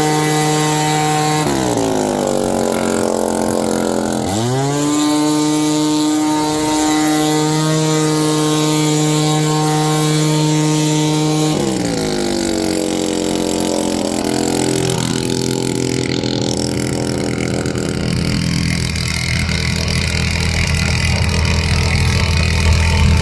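Leaf blower's small engine running at high throttle. The pitch falls as the throttle is let off about a second and a half in, climbs back to full speed a few seconds later, then falls again near the middle and settles to a lower, rougher running toward the end.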